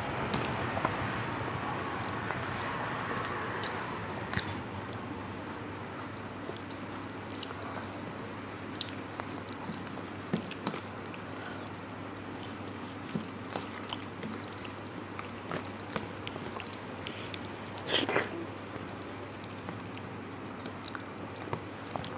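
Close-up eating sounds from a hand-eaten rice meal: soft chewing and mouth noises, with scattered small clicks and wet squishes of fingers mixing rice and curry. There is one louder short sound near the end, over a steady low hum.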